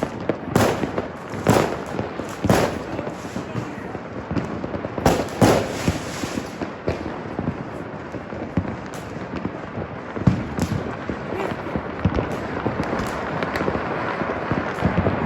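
Fireworks and firecrackers going off without pause: several loud bangs in the first few seconds, then a dense crackle of many smaller cracks.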